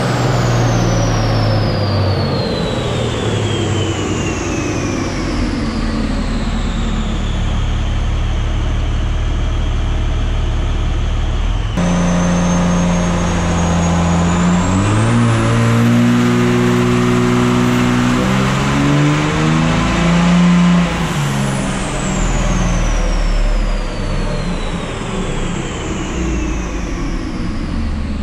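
2006 Dodge 5.9L Cummins turbo diesel with a Taterbuilt 67/67 turbo, making full-power dyno pulls at about 570 hp. A pull winds down with the turbo whistle falling, then after a cut a second full-throttle pull brings the whistle rising high. About two-thirds of the way through the throttle comes off and the whistle falls away as the engine slows.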